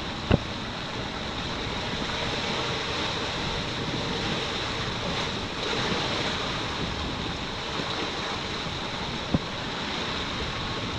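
Wind and sea noise aboard a sailboat under way: a steady rush of wind and waves with wind buffeting the microphone, and two brief knocks, one just after the start and one near the end.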